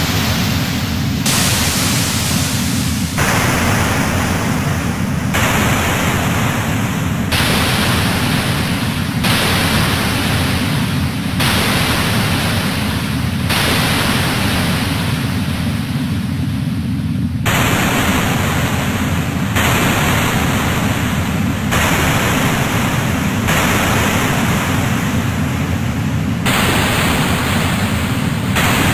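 Harsh electronic noise music: a steady low rumble of noise under layers of hiss that switch abruptly about every two seconds, each block with a different tone colour.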